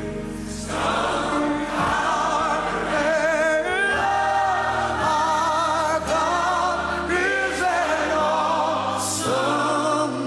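Gospel music: a choir singing.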